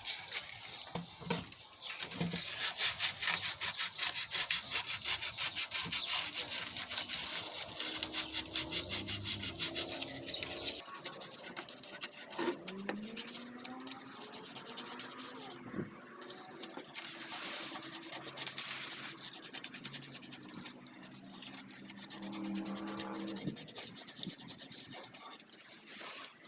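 Sanding a wooden drawer or tray: abrasive rubbing on wood in rapid back-and-forth strokes, a rough, scratchy hiss.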